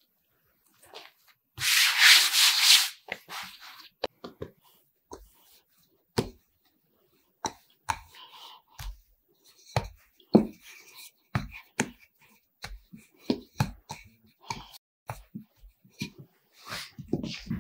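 A short loud rustling hiss about two seconds in as flour is sprinkled over the dough, then a wooden rolling pin rolling out soft bread dough on a floured worktop: irregular knocks and rubbing strokes.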